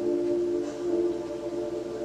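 Background music of long held low notes, moving to new notes a couple of times.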